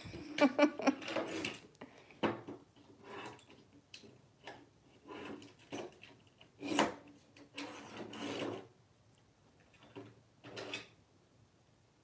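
African grey parrot batting and shoving a toy whale around the bottom of a wooden drawer: irregular scrapes and knocks of the toy against the wood, coming in short clusters with brief pauses, sparser near the end.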